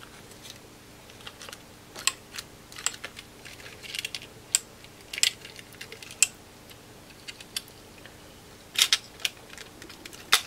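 Irregular plastic clicks and taps as the old screen of an Oppo A54S phone is worked loose from its frame by hand, with a quick cluster of clicks near the end.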